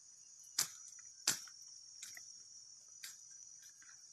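Steady, high-pitched chorus of insects, with two sharp knocks about half a second and just over a second in, and a couple of fainter ones later.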